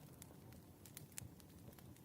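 Firewood burning with faint, irregular crackles and pops over a soft low rumble of the flames.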